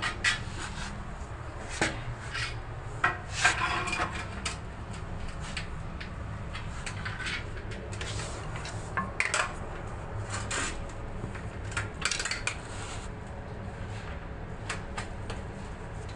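Irregular metallic clinks, knocks and scrapes as a metal shower-enclosure frame profile is handled and set against the floor, with small clusters of clatter a few seconds in, around the middle and near three-quarters through.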